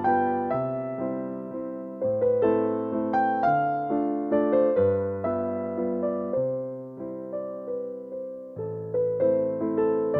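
Background music played on an electric piano: a calm melody over sustained chords, with the bass note changing every second or two.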